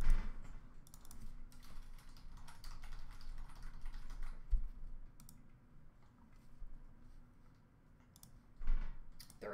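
Typing on a computer keyboard: a run of quick key clicks over the first few seconds that thins out, then a single louder thump near the end.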